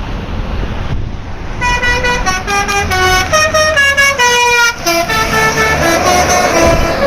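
Bus telolet horn playing a quick melody of short stepped notes, starting a little under two seconds in, over a low engine rumble.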